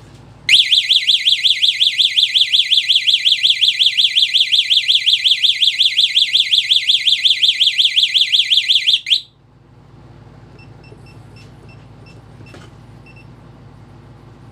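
Burglar alarm siren warbling, a loud high wail sweeping up and down about six times a second, cutting off suddenly about nine seconds in. A low hum and a run of faint short electronic beeps follow.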